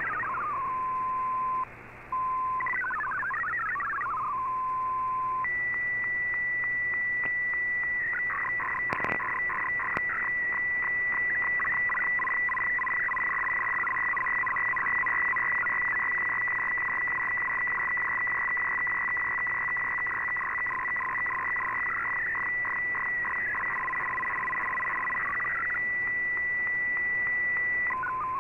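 Shortwave data broadcast from the Icom IC-R8600 receiver's audio. It opens with short bursts of warbling MFSK digital tones and a steady lower tone. From about five seconds in comes an MFSK picture transmission: a steady high tone over a fast, buzzing run of shifting tones that carries the image line by line.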